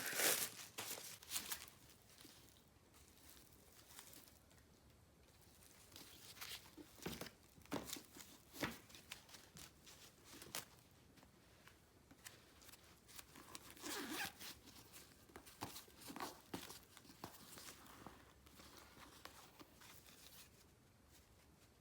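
Intermittent rustling, crinkling and small clicks as a canvas handbag and its packaging are handled, with a louder flurry right at the start and another about fourteen seconds in.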